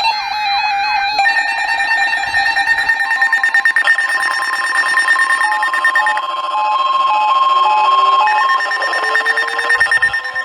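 Several electronic emergency alert tones sounding over one another: steady beeping tones, a two-pitch alternating beep in the middle, and a tone that rises slowly near the end.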